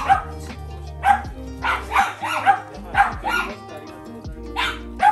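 A dog barking repeatedly in short, sharp barks, about one or two a second, over background music.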